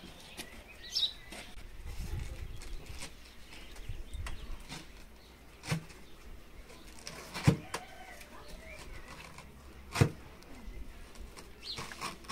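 A kitchen knife slicing through pineapple and knocking down onto a wooden table: three sharp knocks a couple of seconds apart. Birds chirp briefly now and then.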